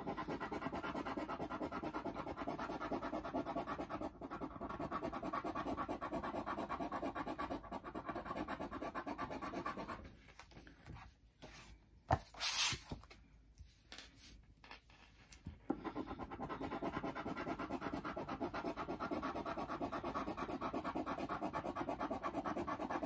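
A coin-shaped scratcher rasping the scratch-off coating from a lottery ticket in quick, steady strokes. The scratching stops for about five seconds in the middle, with one short sound about halfway through, then starts again.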